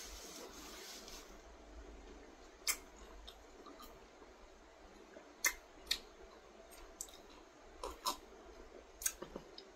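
Drinking from a glass: a string of faint, sharp clicks from swallowing and the glass at the lips, some coming in pairs about half a second apart.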